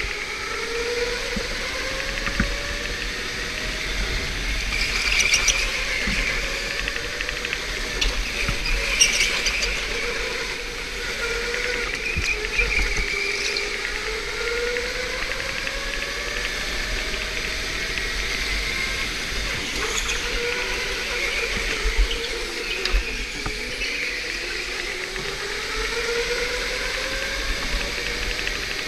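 Electric go-kart's motor whining, its pitch rising over a few seconds as the kart speeds up and dropping again when it slows for the turns, over a steady hiss. A few brief clatters sound now and then.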